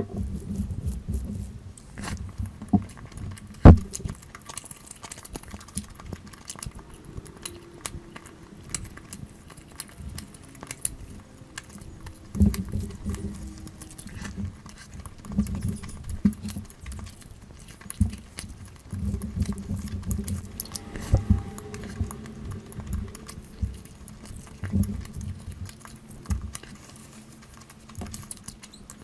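Close-miked eating sounds of a person eating curry with rice: irregular wet clicks, smacks and chewing, with one sharp knock a few seconds in.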